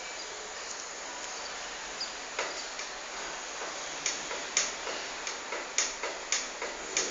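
A series of short, sharp clicks over a steady hiss: a few scattered ones at first, then about two a second at uneven spacing through the last three seconds.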